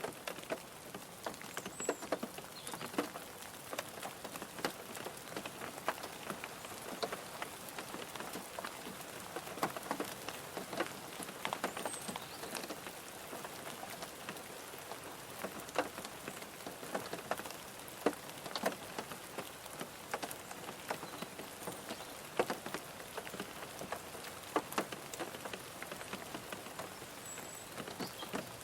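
Rain falling on a car, heard from inside the car: a steady patter with many irregular, sharper single drop strikes.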